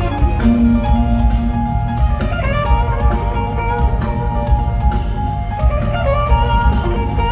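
Live band music: sustained guitar and keyboard-like tones over a steady drum kit beat.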